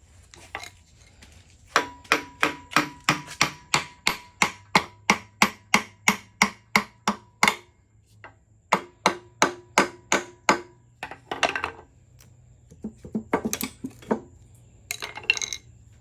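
A hammer striking metal in fast, even blows, about four a second, in two long runs, some blows with a short metallic ring; a few shorter rough clattering bursts follow near the end.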